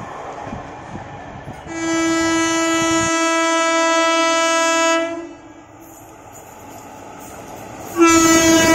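Indian Railways electric locomotive air horn sounding one long, steady single-tone blast of about three seconds, over low train rumble. A second loud horn blast starts near the end as the locomotive approaches.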